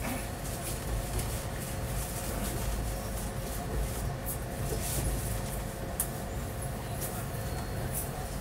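Inside a moving passenger train carriage: a steady low rumble with scattered sharp clicks and rattles.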